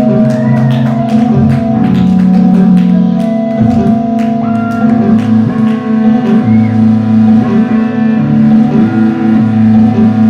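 Live band music: sustained held notes over a moving bass line, with sharp percussion strikes through the first few seconds.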